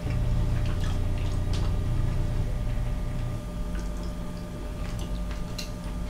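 Small scattered clicks of chopsticks and mouth sounds as a man eats cured mackerel, over a steady low hum.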